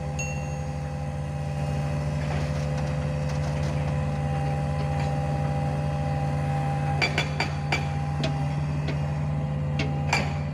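Diesel engine idling steadily, with a few sharp metallic clinks about seven seconds in and again near the end.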